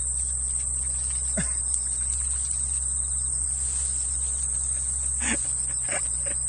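Insects chirring in a steady, high-pitched chorus over a low steady hum, with a few brief faint sounds about a second and a half in and near the end.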